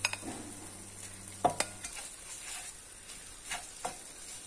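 A slotted spatula scrapes and knocks against a non-stick wok as rice is stirred into the frying ingredients, over a faint steady sizzle. The sharpest knock comes about a second and a half in, and a couple more follow near the end.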